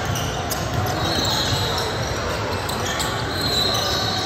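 Basketball game in an echoing gym: the ball bouncing on the hardwood court over a constant din of players and spectators, with two brief high-pitched squeaks, about a second in and again near the end.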